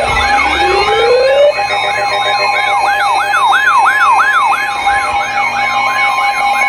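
Emergency alert tones ahead of a severe thunderstorm warning: a steady two-tone alarm with an electronic siren over it. The siren winds up in the first second or so, then wails up and down about three times a second.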